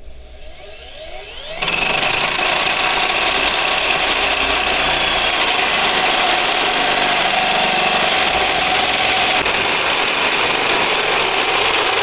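Corded drill driving a 1¾-inch hole saw in a tube notcher: the motor whines up in pitch over the first second and a half, then the saw bites and cuts steadily and loudly through the steel J-bar tube.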